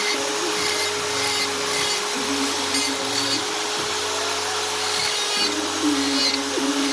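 Handheld electric die grinder running with a steady whine as its small bur grinds into wood, cutting feather detail.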